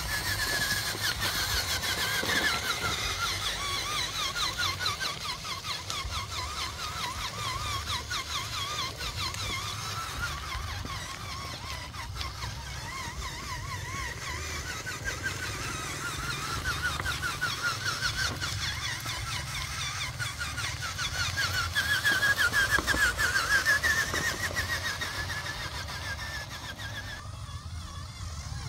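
Radio-controlled scale model tractor driving over gravel and mud. Its motor and drive run with a whine that wavers up and down in pitch as its speed changes, and it is loudest a little past the middle.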